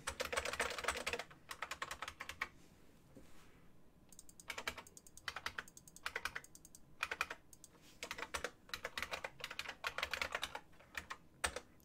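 Typing on a computer keyboard in quick runs of key clicks, with a pause of about a second and a half a few seconds in.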